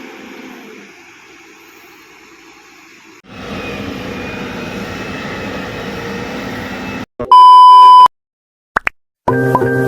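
Heavy machinery engine running, louder after about three seconds, then cut off by a loud steady electronic beep lasting about a second. Music begins near the end.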